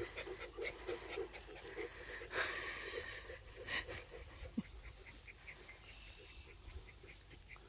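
A dog panting in quick, even breaths, about three a second, fading out after the first couple of seconds. A short rustling noise comes about two and a half seconds in.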